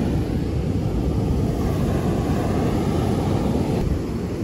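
Heavy surf breaking, a steady low rumble of waves, with wind buffeting the microphone.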